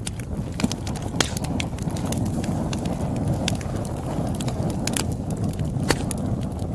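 Campfire crackling: irregular sharp pops and snaps over a steady low rumble of the burning fire.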